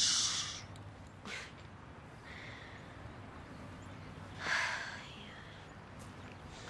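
A breathy, mouth-made 'whoosh' at the very start, mimicking a flare of flame, then a short sigh or outbreath about four and a half seconds in, with faint background hiss between.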